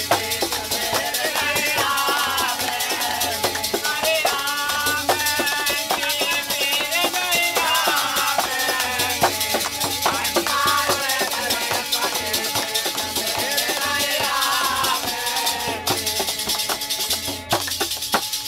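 Group of men singing a folk song in chorus, accompanied by a small two-headed hand drum, wooden clappers with metal jingles and hand claps, in a fast, busy rhythm.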